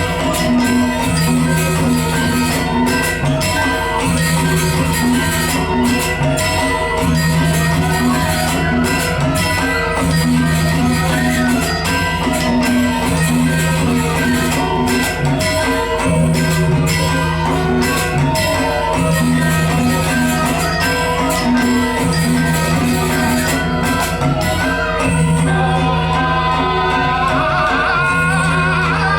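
Balinese gamelan ensemble playing dance music: bronze metallophones ring out steady melodic notes over long sustained low tones, with quick crisp metallic strikes throughout.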